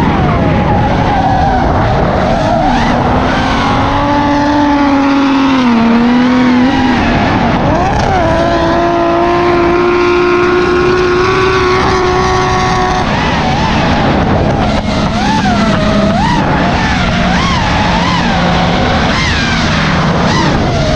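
Drift cars at full throttle, engines revving up and down over the steady hiss of sliding, skidding tyres.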